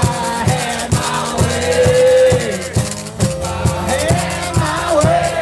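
Live acoustic blues: a man's voice singing over a strummed acoustic guitar, with a washboard scraped and tapped in a steady, quick rhythm.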